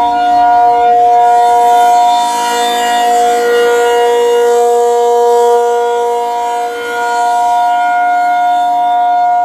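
Reverse-wired ACA Penetrator P-50 tornado siren sounding a steady alert tone: a held two-note chord from its 8/12-port chopper, the loudness swelling and dipping gently.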